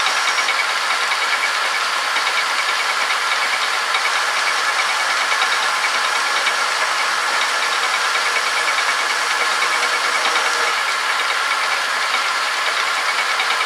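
Homemade metal lathe running and turning a steel motor shaft, the cutter taking a cut: a steady whirring hiss that holds even throughout.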